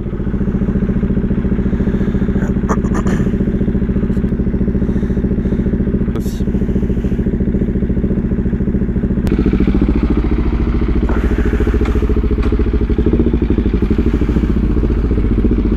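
Motorcycle engine running steadily at idle, with a few faint clicks in the first seconds. A little over halfway through it gets louder and fuller as the bike pulls away.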